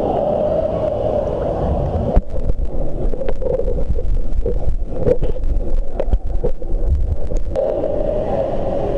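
A child plunging into a swimming pool, heard from a microphone under the water: a sharp splash about two seconds in, then crackling, gurgling bubbles. Near the end the microphone comes back up to a steady, muffled wash of pool noise.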